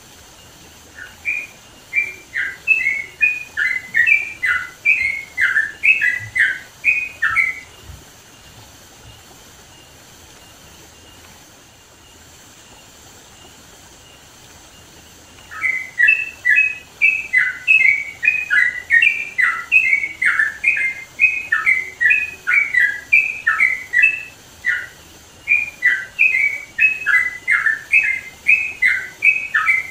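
Yellow-vented bulbul (trucukan) singing loudly in quick runs of short whistled notes. It stops for about eight seconds in the middle, then starts again.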